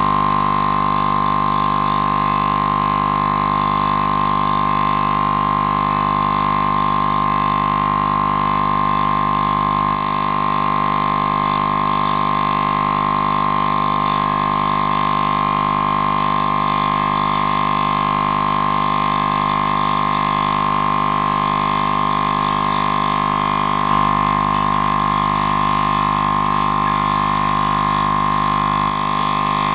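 Portable electric air compressor running steadily, its motor and piston pump making a constant loud hum with a strong high tone.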